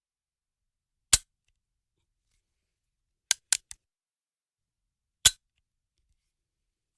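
Five sharp clicks in otherwise dead silence: one, then a quick run of three, then one more.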